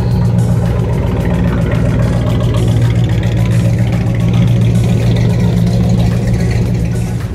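Car engine running steadily with a deep low rumble, easing off near the end.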